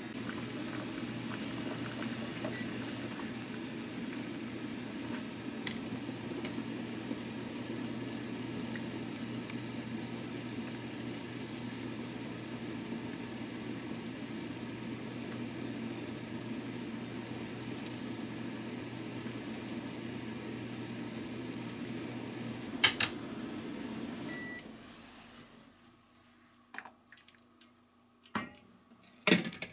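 Water boiling in a stainless steel pot with fried tofu pouches in it: a steady bubbling hiss over a low hum. A loud sharp clack comes a little before the boiling stops. Near the end, a few sharp metal clinks from the mesh strainer.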